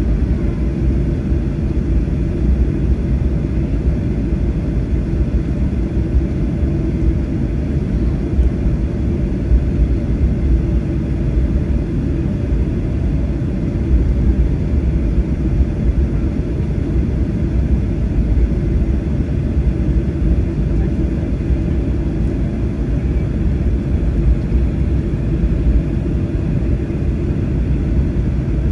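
Inside the cabin of a Boeing 737-800 taxiing after landing: a steady low rumble from its CFM56-7B engines at idle and the wheels rolling over the taxiway.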